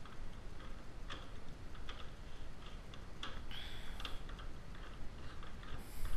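Hand screwdriver turning the screw of a cable-connector bracket to tighten it: faint, irregular clicks and a brief scrape of the driver in the screw, about halfway through.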